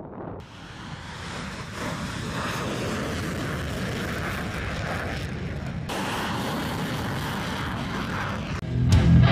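Single F135 turbofan of a Marine Corps F-35B running at takeoff power as the jet lifts off and climbs away, a loud steady jet roar that builds in the first second. Near the end it is cut off by guitar music.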